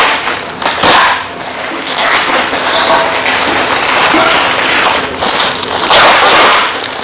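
Plastic parcel wrapping rustling and crinkling as it is pulled back and handled. It is loudest about a second in and again around six seconds.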